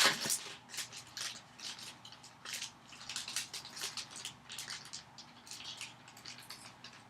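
Yu-Gi-Oh! trading cards being slid through by hand, a soft swish as each card moves past the next, repeated about twice a second.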